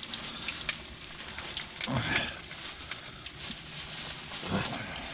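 Pieces of pike, the head and tail, frying in oil in a pan on a camp stove: a steady sizzle with small pops and crackles.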